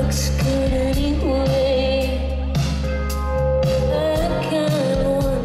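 Live song: a woman singing into a microphone while playing electric guitar, with a band backing her. Her voice holds long notes.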